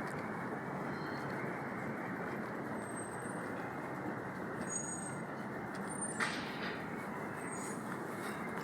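Steady city street traffic noise, with a brief click about six seconds in.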